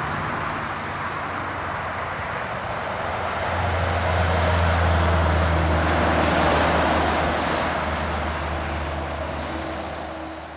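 Scania R500 trucks with V8 diesel engines driving past one after the other: a deep, steady engine note with tyre noise. It swells as the first truck passes close by about halfway through, then fades toward the end.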